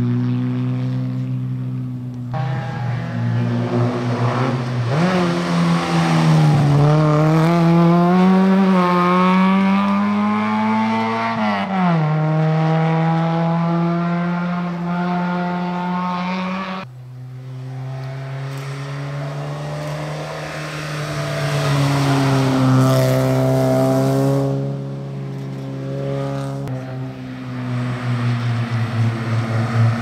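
Classic rally car engines running on a stage. The pitch rises and falls between about five and twelve seconds in, and the sound changes abruptly twice.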